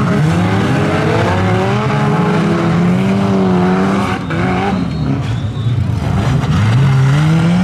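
Several super stock-car engines running hard on a dirt oval, their pitches rising and falling as the cars accelerate and lift off, with a brief dip in loudness about four seconds in and one engine climbing in pitch near the end.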